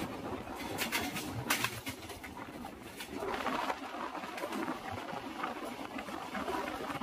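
Indian Railways passenger coach running along the track, heard from its open doorway: a steady rolling rumble of wheels on rail mixed with wind on the microphone. A couple of sharp clicks come between one and two seconds in.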